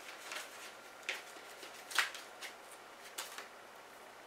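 Plastic disc case and its paper cover sleeve being handled: faint rustling with a few light clicks, the clearest about two seconds in.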